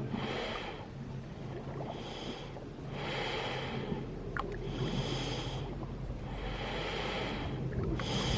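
Breath-like hissing from holes in seaside rock, about six slow strokes that alternate like someone breathing in and out. The uploader takes it for air being pushed out of the holes by the waves.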